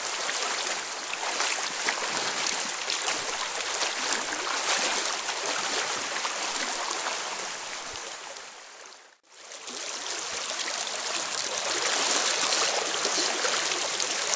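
Steady rushing of a fast river current. It fades down and cuts out for a moment about two-thirds of the way through, then the rushing picks up again.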